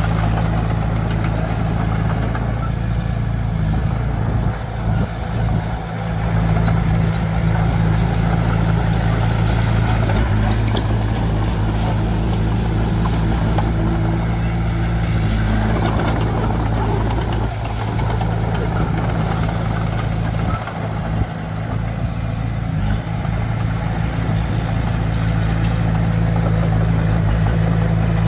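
A heavy diesel engine running at a steady speed, with a low, constant hum and a few brief dips in loudness.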